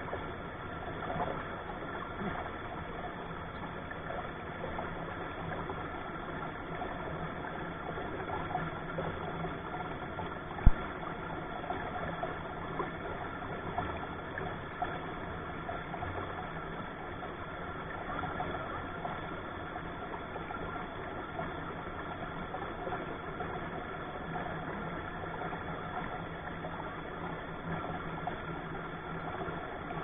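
Shallow rocky stream running steadily over stones close by. A single sharp knock comes about ten seconds in.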